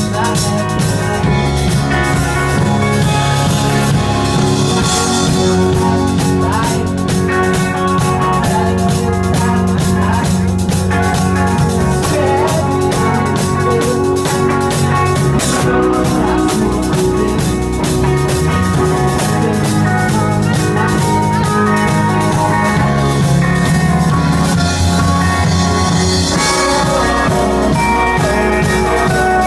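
A live rock band playing loudly, electric guitar over a drum kit beating steadily.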